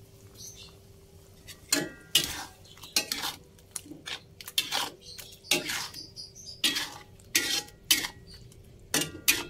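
Metal spatula stirring sausage pieces in sauce in a metal wok, knocking and scraping against the pan about twice a second, starting a little under two seconds in.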